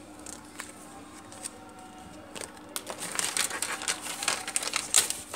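Thin plastic packaging bag holding drone propellers crinkling and crackling as hands handle it and pull it open. A few light rustles at first, then dense crackling from about two seconds in, loudest just before the end.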